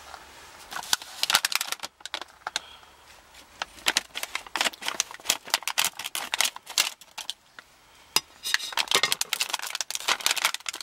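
Clear plastic packaging bag crinkling in irregular bursts of sharp crackles as the bagged fuel line adapter is handled.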